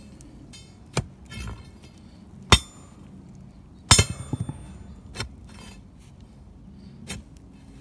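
Shovel blade digging into hard, stony soil, striking with five sharp metallic clinks spaced a second or more apart, the loudest about four seconds in. Loose dirt scatters between the strikes.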